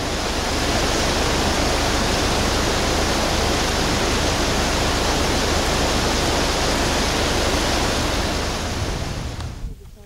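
Steady, loud rushing of flowing river water, fading out near the end.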